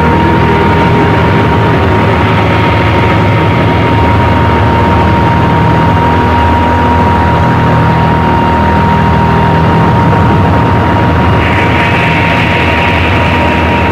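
Power electronics noise: a loud, unbroken wall of droning low hum and hiss with a steady high sine-like tone held over it. A brighter, hissier layer comes in about two-thirds of the way through.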